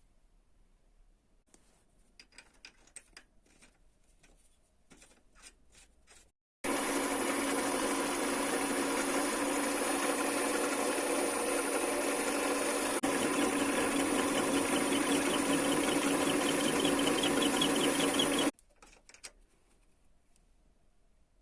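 A TV-7M benchtop lathe running steadily for about twelve seconds, a motor-and-gear whine that gets a little louder about halfway through, starting and stopping abruptly. Before it come a few faint clicks and taps of handling.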